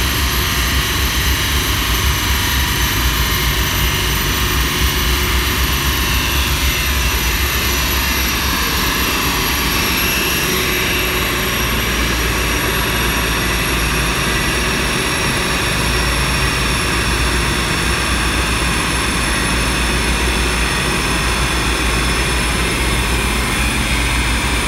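Loud, steady roar of a chassis-dyno cell: a large cooling fan blowing air at a Lotus Exige held on the dyno rollers, with the car's engine running.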